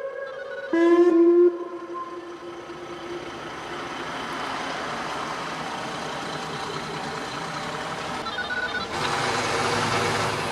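Whelen WPS-2910 electronic siren sounding its whoop tone: a last rising sweep about a second in that cuts off suddenly, its echo dying away over the next second. After that, a steady wash of traffic noise that grows louder near the end.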